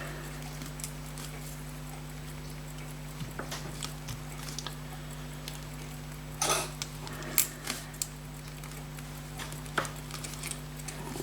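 Scattered small clicks and brief scrapes of hand tools on a pocket watch's mainspring barrel as it is worked open, over a steady electrical hum.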